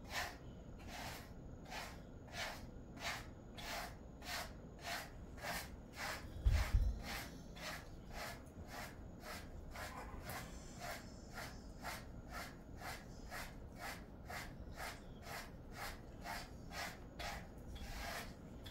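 A hand brush stroked through a Jindo mix dog's thick coat in regular strokes, about two a second. About a third of the way in there is a single low thump.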